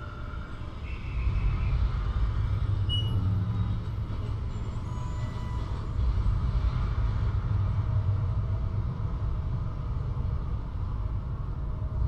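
Steady low rumble of a high-speed passenger elevator cab climbing its shaft, getting louder a little over a second in, with a few faint short tones above it.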